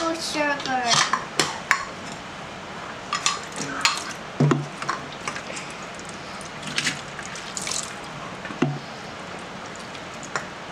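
Plastic measuring cup scooping granulated sugar out of a glass jar: scattered scrapes and clicks, and a few light knocks of the cup against the glass.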